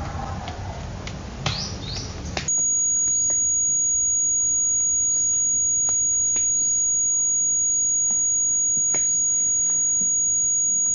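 Birds chirping, short falling calls repeated every second or so, over a loud, steady, very high-pitched whine. For the first two and a half seconds the whine drops out and a rushing noise carries the chirps instead.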